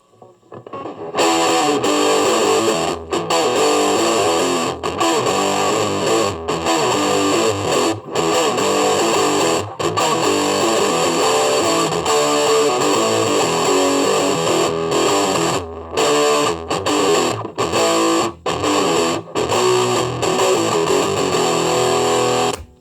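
Loud music led by distorted electric guitar, starting about a second in, with brief regular breaks and a run of quick stops near the end, then cutting off abruptly.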